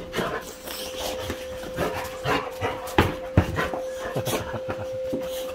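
Two excited boxer dogs making dog sounds as they are greeted and petted, with many short clicks and knocks among them. A steady tone hums underneath.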